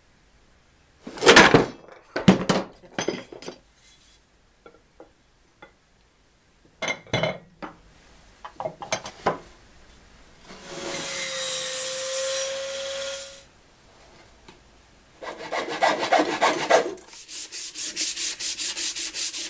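Sandpaper rubbed quickly back and forth by hand over a glued plywood dust shroud, about five strokes a second, starting about three-quarters of the way through. Earlier come a few knocks of wood and metal on wood and a steady rasping noise lasting about three seconds.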